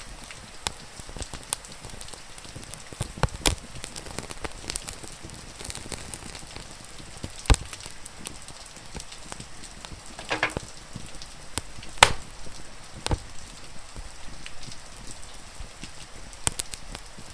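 Wood fire crackling over a steady hiss of rain, with irregular sharp pops. A few pops stand out loud: one about halfway through and another about two-thirds in, just after a quick run of small crackles.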